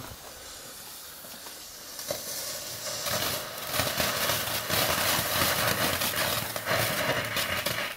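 Small firework ground fountain: its fuse hisses quietly, then about two to three seconds in the fountain catches and sprays sparks with a loud crackling hiss. The spray cuts off right at the end, a short burn.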